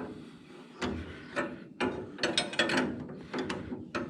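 Socket ratchet with a 15/16 socket clicking in a run of short, uneven strokes, working a bolt loose.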